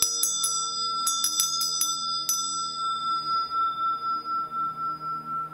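A small metal bell or chime struck once, ringing out with several high overtones that fade within a few seconds. A series of light clicks sounds over the first two seconds. One clear tone rings on after that with a slow pulsing waver.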